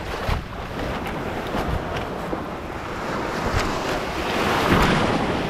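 Surf washing on the shore and wind buffeting the microphone, the wash swelling louder a little before the end, with a few short sharp crackles.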